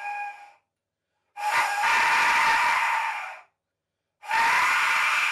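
3D-printed Mayan death whistle blown in breath-long blasts: a harsh, breathy shriek with a tone near the middle of the range. It is so loud that it clips the microphone. One blast ends near the start, then two more of about two seconds each follow with silent gaps between them.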